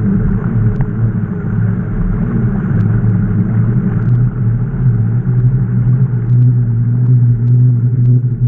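Steady low rumble from riding a bicycle, with a few faint clicks scattered through it.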